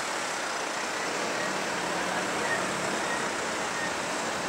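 City road traffic: cars passing close by, a steady hiss of tyres and engines.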